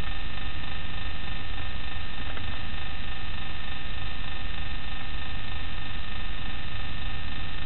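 Steady electrical hum and hiss with several constant high tones held through it and a low rumble underneath, unchanging throughout.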